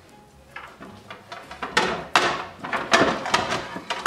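Stacked dinner plates knocking and clinking together as they are shifted and a plate is pulled out of a cupboard stack. The knocks are sparse at first and come in a quick run over the last two seconds or so.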